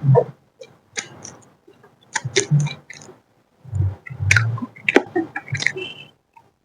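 Close-miked eating of chicken chowmein: wet chewing, with mouth smacks and clicks in short bursts separated by brief pauses.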